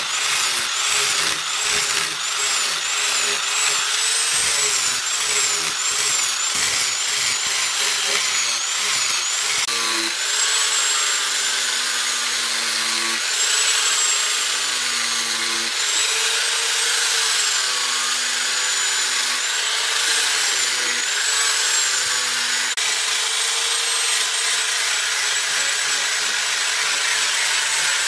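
Electric angle grinder with a sanding disc running against a knife's wooden handle, shaping it. Its high whine keeps dipping and rising in pitch as the disc is pressed into the wood and eased off, quickly at first and in slower swings later.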